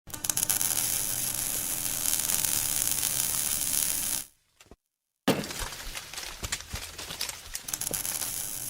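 Crunching and scraping on snow, with crackly clicks. It comes in two stretches separated by about a second of dead silence near the middle.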